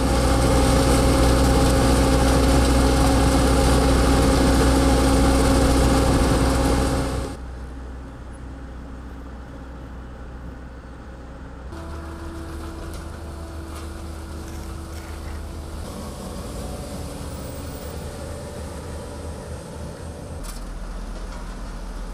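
Diesel engines of asphalt-paving machinery running steadily. An asphalt paver's engine is loud and even for about the first seven seconds, then the sound drops suddenly to a quieter machine hum. A different steady engine tone enters about twelve seconds in, where a road roller is working fresh asphalt.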